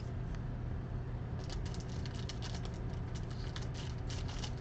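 Baseball cards being handled: a run of light, quick ticks and rustles starting about a second and a half in, over a steady low hum.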